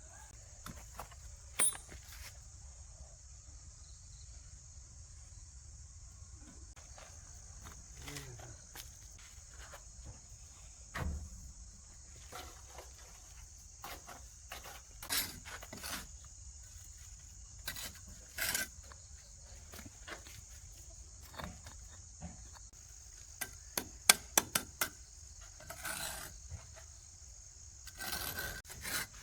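A steady, high-pitched chorus of insects, with scattered knocks and taps over it. A quick run of sharp clicks near the end is the loudest part.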